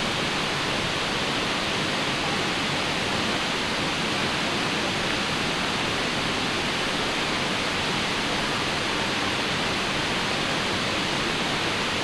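A waterfall's falling water: a steady, even rush.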